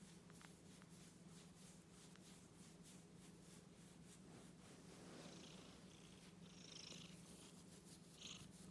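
Domestic cat purring steadily and faintly, with a soft rustle partway through and a brief high scratch near the end.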